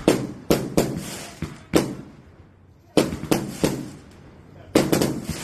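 Firecrackers going off: a series of sharp bangs in three or four clusters, each bang followed by a short decaying rumble.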